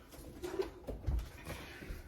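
Soft handling noises: light knocks and a low thump about a second in, as items and refrigerator parts are moved about.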